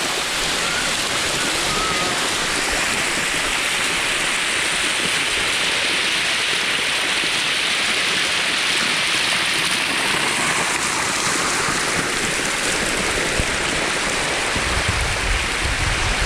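Waterfall pouring into a swimming hole: a loud, steady rushing of falling water, with a low rumble creeping in near the end.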